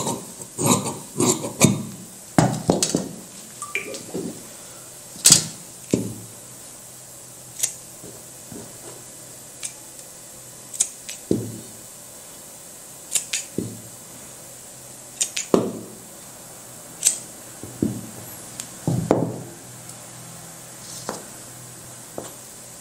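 Large tailoring scissors snipping through cotton blouse-lining fabric on a cutting table: a quick run of crisp snips over the first few seconds, then scattered clicks and knocks further apart as the fabric and tools are handled.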